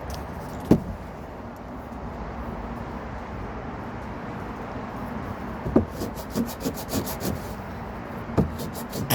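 Sandpaper rubbing on wood by hand in a steady rasp, with a few sharp knocks: one about a second in and a cluster between six and seven seconds in.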